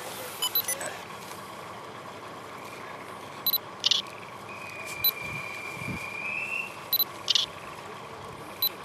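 Single-lens reflex camera shutters clicking several times, often in quick pairs, over a steady background hum. Near the middle a single long, high, steady whistle sounds for about two seconds.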